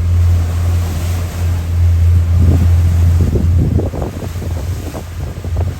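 Wind buffeting the microphone on the deck of a motor yacht under way in open ocean, over the steady low drone of the boat's engines and the wash of water along the hull. The buffeting comes in rough gusts in the middle.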